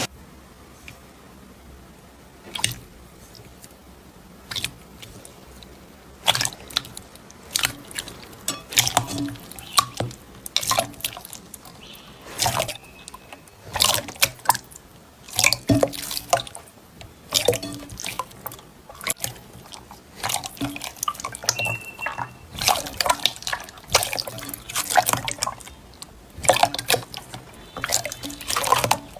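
Slime being squeezed and worked by hand, giving irregular wet, sticky clicks and pops, sparse at first and coming much thicker after about six seconds.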